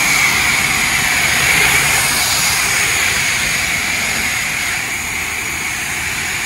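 High-pressure water jet from a self-serve car wash wand hitting a pickup truck's body panels: a loud, steady hiss. The wand is set to wash soap, but only plain water is coming out.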